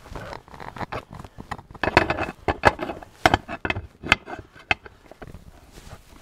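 Wrench turning a nylon locking nut up the stud of a Sportster primary chain tensioner: irregular metal clicks and clinks, with a few sharper ones between about two and five seconds in.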